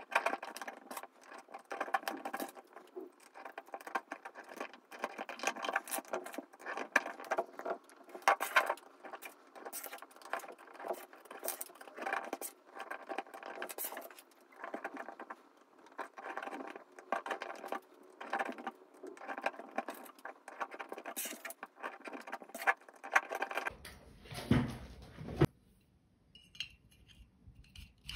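Thin steel transformer core laminations clinking and scraping as they are slid one by one into the wound coil of a small transformer being rebuilt: a long run of quick, light, irregular metallic clicks. Near the end come a few heavier knocks from handling the assembled core, then it goes quieter.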